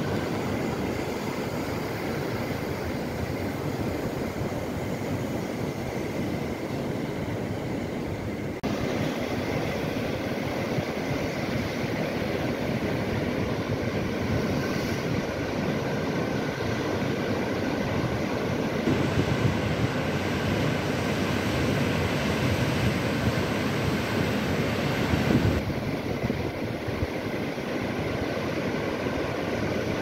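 Steady rushing noise of Atlantic Ocean surf, with no single wave standing out. The sound changes abruptly twice: it gets louder and brighter about nine seconds in, and duller again near the end.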